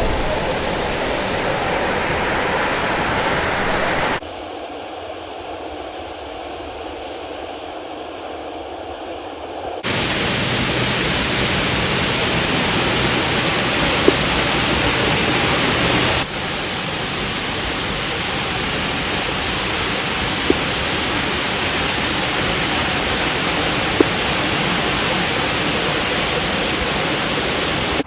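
Steady rushing roar of a waterfall close by. The sound changes abruptly three times, as between separately recorded shots of the falling water.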